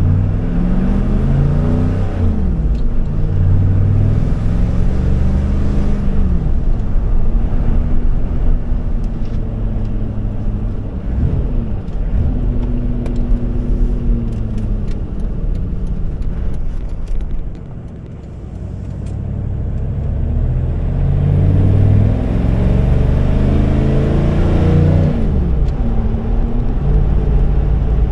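A 6.5 L Detroit turbo diesel V8 running through a muffler-less four-inch exhaust, heard from inside the cab while the truck accelerates. The engine note climbs in pitch and drops back at each upshift, several times over. A thin high whistle rises over it during the hardest pulls, and it goes briefly quieter a little past the middle before building again.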